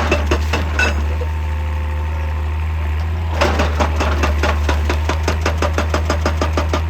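Excavator-mounted hydraulic breaker hammering rock in rapid, even blows, about six or seven a second, over the excavator's engine running steadily. The hammering stops about a second in and starts again a couple of seconds later while the engine keeps running.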